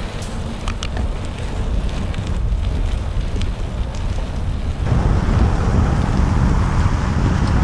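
Wind noise on a bike-mounted action camera's microphone while cycling, a steady rushing that grows louder about five seconds in, with a few light clicks near the start.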